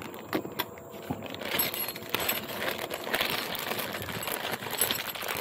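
Clear plastic bag crinkling and rustling in the hands as it is opened, with irregular small clicks.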